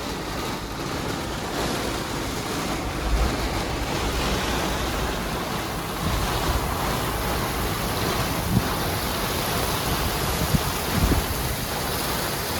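Steady rush of wind and rain in a storm, with gusts thumping on the microphone every few seconds.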